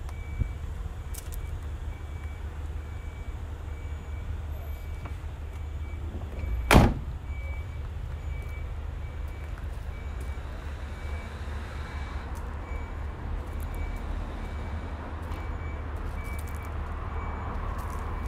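A car door, the Nissan Figaro's, shut once with a single loud thud about seven seconds in, over a steady low rumble and a faint, evenly repeating beep.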